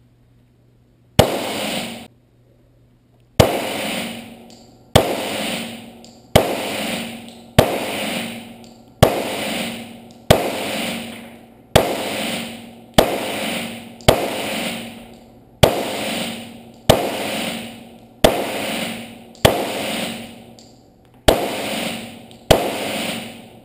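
Smith & Wesson M&P pistol firing in slow, steady single shots: about seventeen reports, roughly one every second and a quarter after a longer pause following the first. Each shot echoes off the walls of an indoor range.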